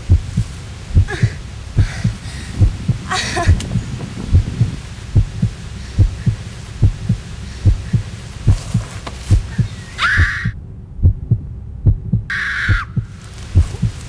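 Heartbeat sound effect on a horror film soundtrack: steady low thumps at about one and a half beats a second. Short high-pitched sounds cut in over it about ten and twelve seconds in.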